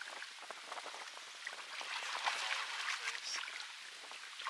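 Water splashing and dripping with many small sharp splashes as a freshly netted fish thrashes in a landing net at the side of a boat.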